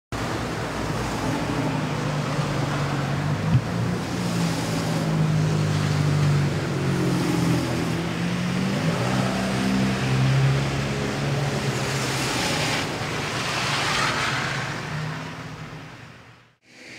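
City street traffic noise: a steady rush with a low engine hum that shifts in pitch, a vehicle passing by about two-thirds of the way through, fading out just before the end.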